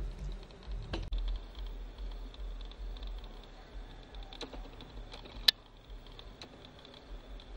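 Outdoor ambience: scattered light clicks and crackles over a faint steady high buzz and a low rumble, with one sharp click about five and a half seconds in, after which the rumble eases.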